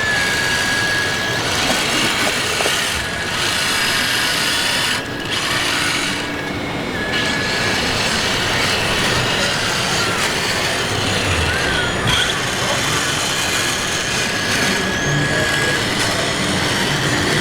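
Large-scale RC construction models working, with a high steady motor whine that starts and stops several times over a dense, steady mechanical din.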